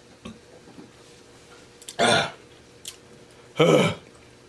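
Two short, loud throat noises from a man, about two seconds in and again about a second and a half later, between quiet stretches.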